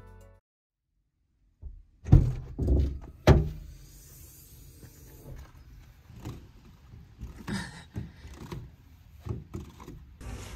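A few loud thumps about two to three seconds in, then lighter knocks and rustling as things are handled and moved about.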